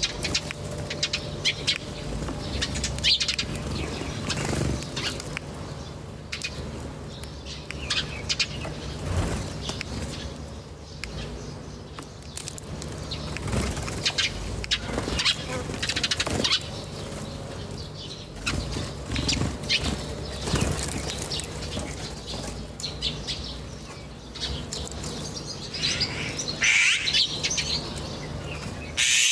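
Small birds chirping in short bursts, with fluttering wings and scattered light clicks, over a steady low hum.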